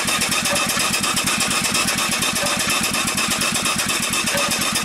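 Small upright steam engine running steadily at a moderate speed on about 25 pounds of steam: a rapid, even beat of exhaust chuffs over the hiss of steam escaping at the cylinder.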